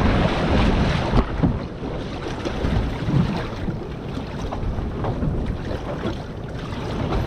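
Wind buffeting the microphone over the slosh of choppy sea against a small boat's hull as it rocks in a heavy swell, with a few sharper slaps near the start and about a second in.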